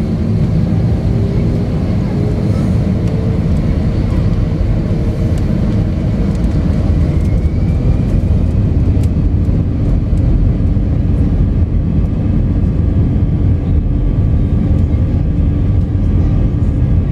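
An airliner's jet engines, heard from inside the cabin, make a steady loud rumble as the plane rolls along the runway for takeoff. A faint rising whine comes in about eight seconds in.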